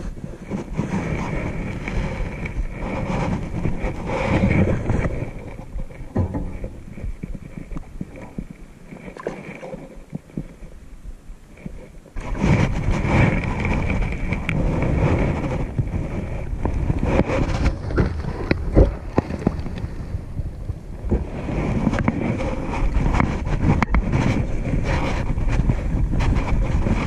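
Gusty wind buffeting the microphone, the rumble swelling and easing and jumping sharply louder about twelve seconds in.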